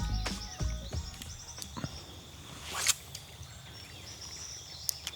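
Bush creek ambience: a steady, high-pitched chirring of insects and birds, with one short whoosh about three seconds in.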